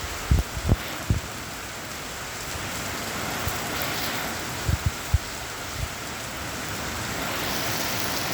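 Steady rain falling, an even hiss, with a few short low thumps near the start and again about halfway through.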